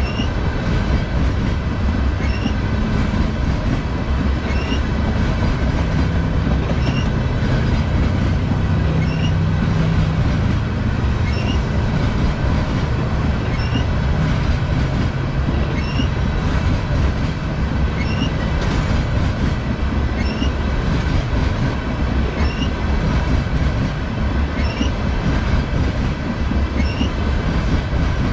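A long string of freight tank cars rolling past on jointed track: a steady low rumble of wheels on rail, with a light high tick repeating about once a second.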